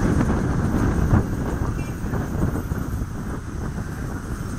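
Cabin noise of a city bus on the move: a steady rumble of engine and road noise with some rattling, easing off a little toward the end.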